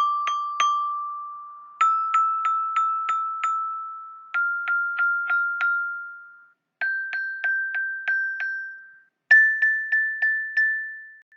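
Glockenspiel notes tapped in quick groups of five or six strikes on one bar, about three a second. Each group is played a step higher up the major scale, and each strike rings briefly.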